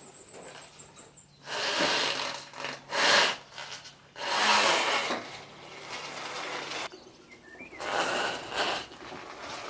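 Irregular rubbing strokes: several separate noisy passes of roughly half a second to a second each, with short pauses between them.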